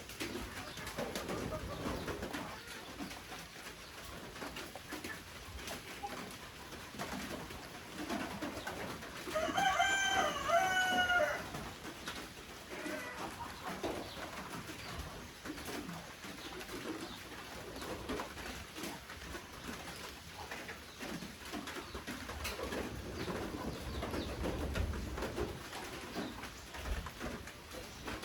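Doves cooing over a light patter of rain drops, with one louder, clearly pitched bird call of about two seconds, broken into three parts, around ten seconds in.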